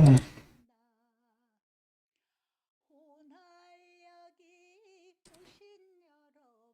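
A man's voice humming a wordless tune. A loud hummed note cuts off in the first half second, then faint, wavering humming starts about three seconds in.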